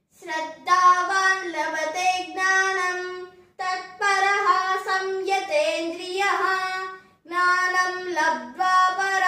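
A boy chanting a Sanskrit sloka to a simple sung melody, in three long phrases with short breaths between them.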